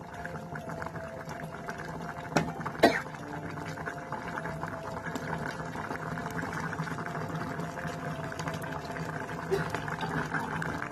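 Coconut milk curry bubbling at a simmer in a pot, a dense fine crackle of bursting bubbles, over a steady low hum. Two sharp knocks come between two and three seconds in.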